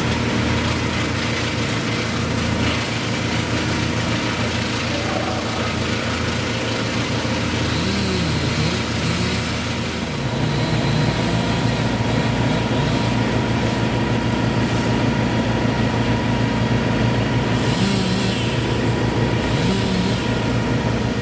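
Engine of tree-service machinery running steadily. About halfway through its low throbbing grows denser and slightly louder, as the engine's load or speed changes.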